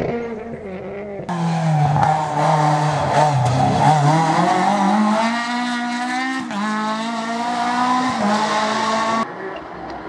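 Rally car engine at stage speed. The revs drop, then climb again, dip once at a gear change about halfway through, and hold high until the sound cuts off suddenly near the end.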